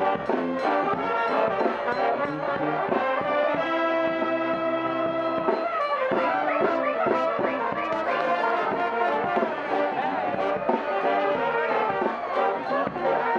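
Street brass band playing, with trumpet and upright brass horns. About four seconds in, the band holds one long chord, then goes back to moving lines.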